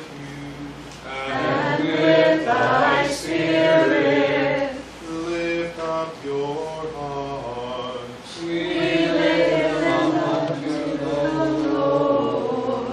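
A small group of voices chanting a liturgical text together in two long phrases, with a quieter stretch between them from about five to eight seconds in.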